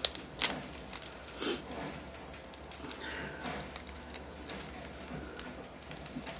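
Hands handling small objects over plastic bags: two sharp clicks near the start, a short breathy swell about a second and a half in, then faint scattered taps and rustles.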